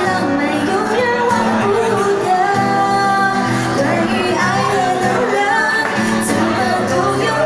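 Live pop song: a woman singing to acoustic guitar, holding long notes in the middle.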